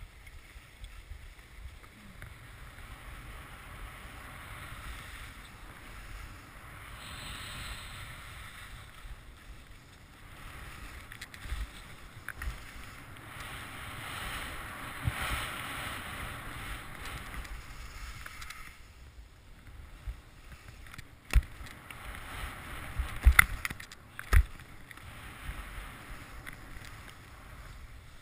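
Skis sliding and scraping over snow, with wind noise on the camera's microphone. The hiss swells in two long stretches, and three sharp knocks come about three-quarters of the way through.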